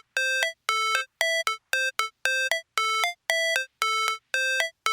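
Electronic synthesizer melody of short, clean beeping notes, about two to three a second, stepping between two nearby pitches in a repeating pattern like a ringtone.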